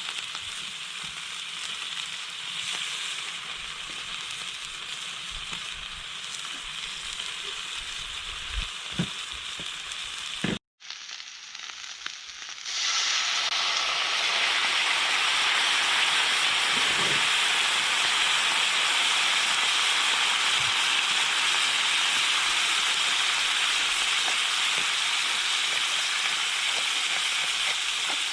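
Food sizzling in a frying pan, a steady crackling hiss with a few faint knocks. The sound cuts out for a moment a little over a third of the way in, then comes back louder and steady.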